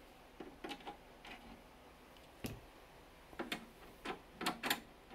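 About ten light, irregular clicks and taps from a screwdriver and loose case screws being handled against a Macintosh Classic's plastic case.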